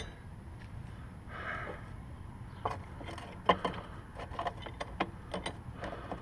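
Scattered clicks and knocks of parts and tools being handled as a guard is fitted back onto a Lawn-Boy mower, with a short rustle a little over a second in and the sharpest knock about three and a half seconds in.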